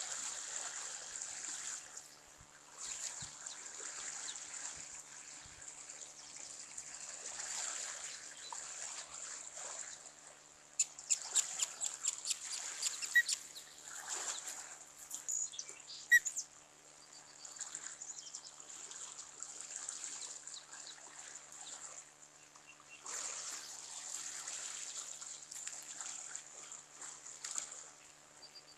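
Wind gusting over an outdoor microphone: a hiss that swells and fades in surges of a few seconds with short lulls between. A few faint short peeps near the middle.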